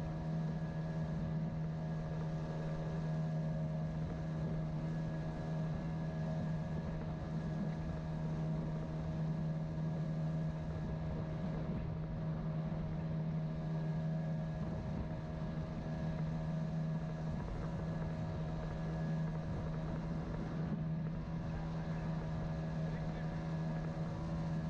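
Boat's outboard motor running at a steady speed, one constant pitch with a steady rush of noise beneath it.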